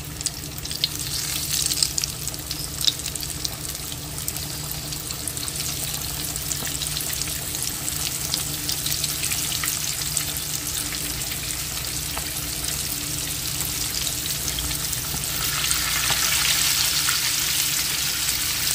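Floured chicken pieces deep-frying in hot peanut oil in a stainless steel pot: a steady bubbling sizzle with sharp pops in the first few seconds, growing louder near the end as another piece is lowered into the oil.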